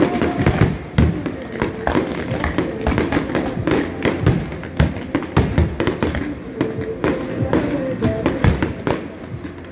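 Fireworks display: aerial shells bursting overhead in a rapid string of bangs, several a second.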